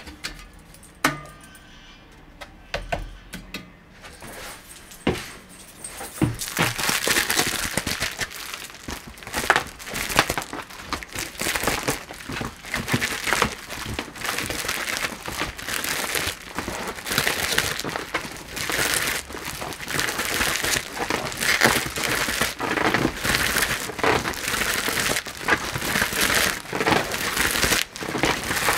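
Black flexible duct hose with a foil lining crinkling and crackling as it is handled and flexed, a continuous crackle from about six seconds in. Before that, a few separate clicks and knocks.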